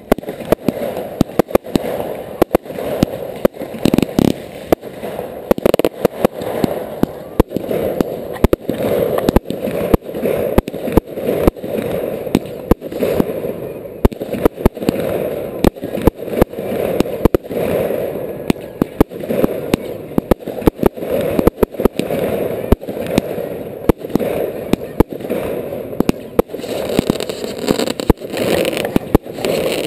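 Fireworks display heard at close range: an unbroken run of sharp bangs and cracks from shells and mines launching and bursting, several a second, over a continuous rushing noise.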